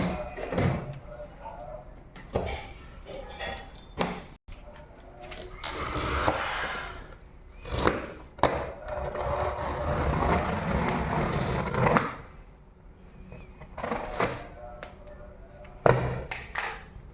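Handling noise of a TV's cardboard and plastic packaging: irregular knocks and clicks, with two longer stretches of scraping and rustling a few seconds in and around the middle.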